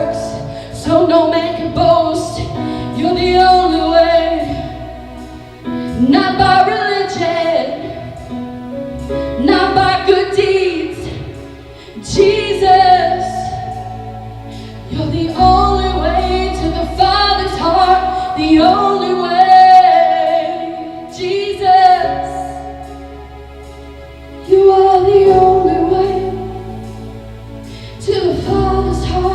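Live worship music: a church band playing a slow praise song, with a sung melody in phrases of a few seconds over sustained low bass notes.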